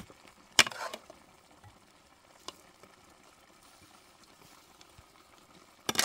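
A metal ladle knocking against cooking pots: one sharp clink about half a second in, a faint tick a couple of seconds later, and a quick run of knocks at the very end.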